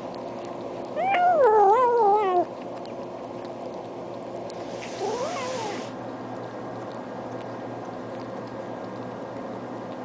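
Domestic cat giving a long, wavering yowl that slides up and down in pitch, then a shorter, quieter meow a few seconds later, over a steady background hum.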